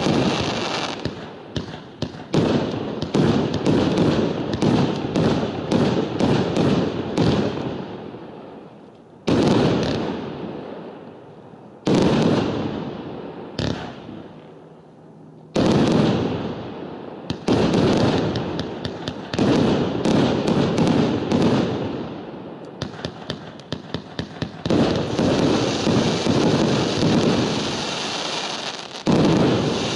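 A 100-shot fireworks cake with crackling palm effects firing in a fast run of shots and bursts. Several heavy bursts, each trailing off in crackle over a couple of seconds, stand out among the volleys, with a short lull near the middle.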